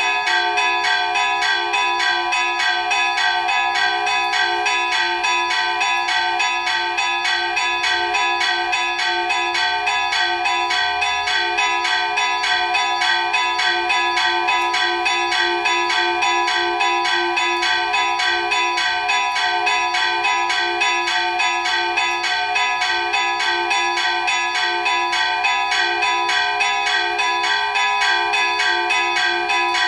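Two fixed church bells, an 18th-century bell in F#4 and a 20th-century Marinelli bell in G#4, chimed by hand with chains pulling the clappers in a quick, even festive peal.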